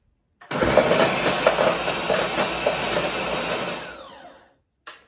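Ninja Professional countertop blender running at full speed, blending a green smoothie of spinach, almond milk, dates and banana. It starts about half a second in, and after about three seconds the motor is switched off and spins down with a falling whine.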